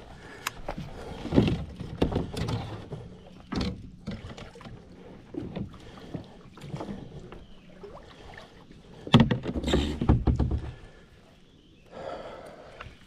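Irregular knocks, bumps and rustling of handling on a kayak, with two louder clusters of low rumble and knocking about a second in and again about nine seconds in.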